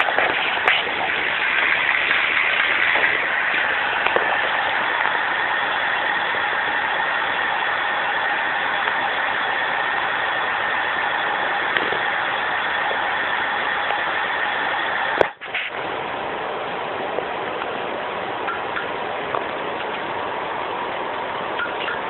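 A spinning bicycle wheel and drivetrain give a steady whirring hiss. It cuts out for a moment about 15 seconds in and carries on a little quieter.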